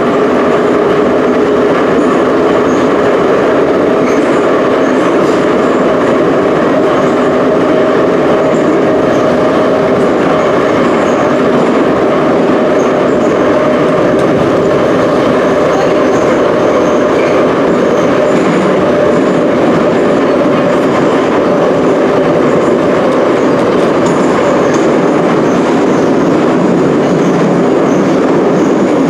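Ezh3/Em-508T metro train running at speed through the tunnel between stations, heard from inside the car: a steady, loud rumble of wheels on rails with a faint steady hum.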